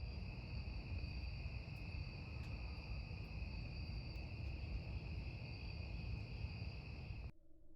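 Crickets chirring steadily in two high continuous tones over a low rumbling noise, with a few faint crackles; the sound cuts off suddenly near the end.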